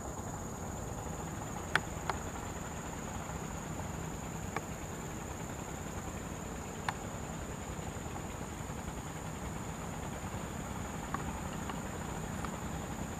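Steady high-pitched insect chirring over an even low hiss, with a few sharp clicks scattered through it.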